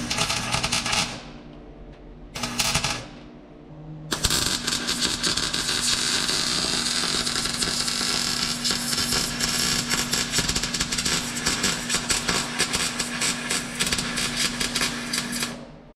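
MIG welding new sheet steel into a 1958 VW Beetle's floor pan: two short bursts of arc crackle in the first three seconds, then one long continuous bead of crackling and sputtering from about four seconds in until just before the end, over a steady hum.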